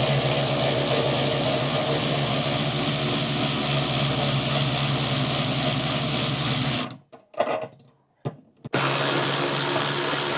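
Byczone 3/8-inch 12V cordless electric ratchet wrench's motor running steadily, spinning a nut off a bolt. About seven seconds in it stops, gives a couple of short blips, then runs steadily again.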